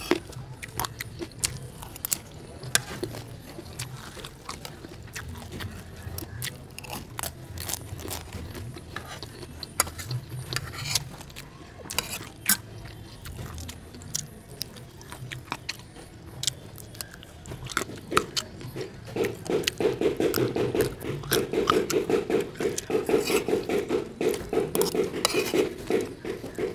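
Close-miked eating: chewing and biting of fried rice, with a metal spoon scraping and clicking on a plate. About two-thirds of the way in, a louder low buzzing sound joins and runs on to the end.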